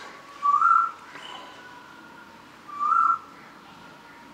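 Short whistle-like call, a brief slightly rising note, heard twice about two and a half seconds apart over a faint steady tone.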